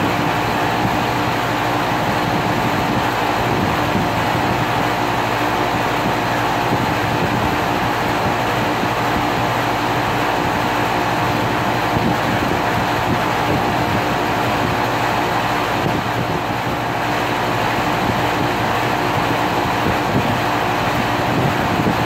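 2001 Carrier 5-ton central air conditioner running steadily: an even rush of fan noise over a steady hum, with no change in speed or pitch.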